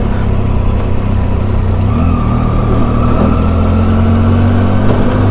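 Triumph Tiger's three-cylinder engine running steadily at low road speed under light throttle, with wind noise over the handlebar-mounted camera. The engine note shifts slightly about two seconds in.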